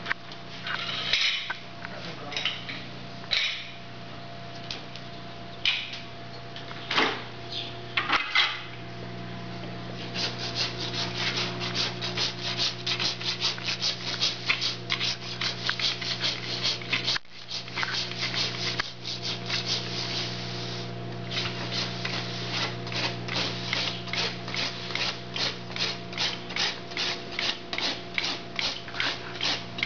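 Farrier's rasp filing a horse's hoof in quick repeated strokes, about two to three a second, starting about ten seconds in after a few scattered scrapes and knocks. A steady low hum runs underneath.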